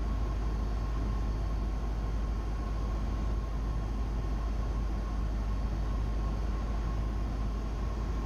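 Steady drone of a Cessna 172's engine and propeller heard inside the cabin, with a faint high whine held on one pitch.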